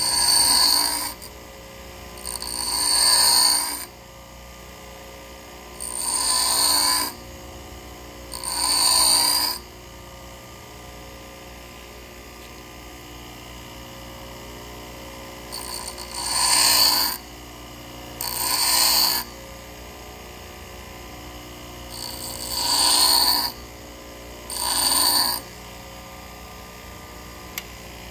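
A 3/8-inch twist drill bit ground by hand against a running bench grinder's wheel: eight short grinding passes of about a second each, roughly in pairs, over the grinder's steady motor hum. The passes shape the cutting edge and grind the relief on the back of the lip.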